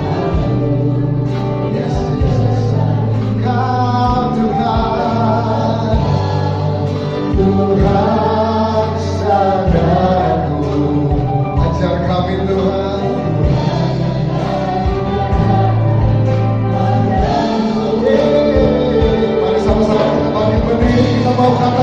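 Choir singing an Indonesian gospel worship song, many voices in harmony over band accompaniment, with sustained bass notes and a steady drum beat.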